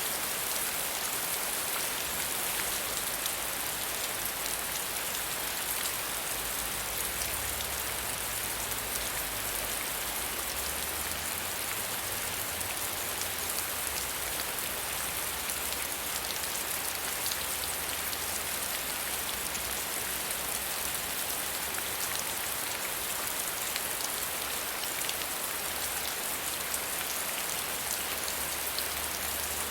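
Steady rain falling, a constant even hiss of many fine drop ticks.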